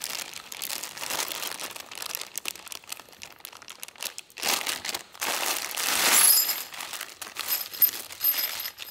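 Plastic bags of bolts and hardware being handled: crinkling plastic, loudest in two swells about halfway through, with faint clinks of the metal hardware inside in the second half.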